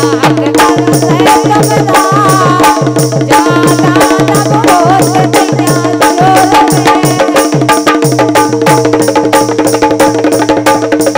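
Live Rai folk music: a dholak plays a quick, steady beat of booming low strokes and sharp slaps over a steady held drone. A wavering melody line rides on top through the first several seconds.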